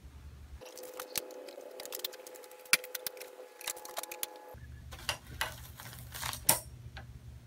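Metal grow-tent frame poles and corner connectors clicking and clinking as they are handled and fitted together: an irregular run of sharp metallic clicks and knocks, with a low hum in parts.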